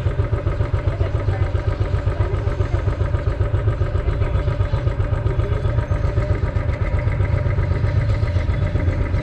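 Royal Enfield 500's single-cylinder engine idling steadily with an even, regular pulse while the motorcycle stands still.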